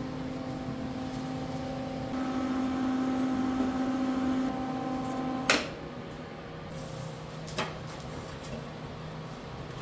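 Lincoln Electric Weld-Pak 175HD MIG welder humming steadily, then switched off with a sharp click about halfway through, which cuts the hum. A quieter low hum and one more small click follow.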